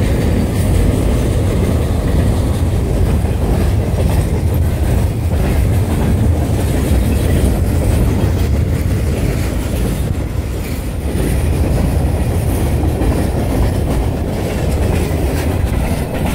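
Freight train of loaded flatcars rolling past: a steady, loud rumble of steel wheels on the rails, with the clickety-clack of wheels crossing rail joints.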